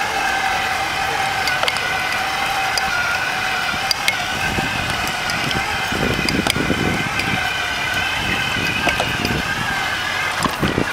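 Mini-Andros tracked robot's electric drive whining steadily as it drives along. Wind buffets the microphone in gusts from about four seconds in, with scattered light clicks.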